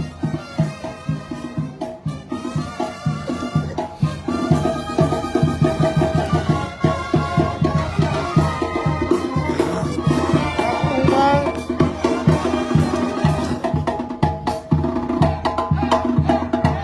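Sinaloan banda playing: held horn notes over a steady low beat, growing fuller about four seconds in.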